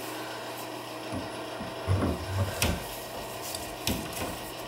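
Pliers and metal plumbing fittings clicking and knocking irregularly while a shower head is being worked loose or fitted, with one sharp metallic click about halfway through.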